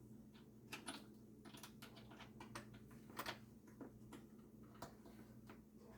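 Quiet, irregular clicks and taps of small metal hardware being handled while fitting parts to an old cash register drawer, over a faint steady low hum.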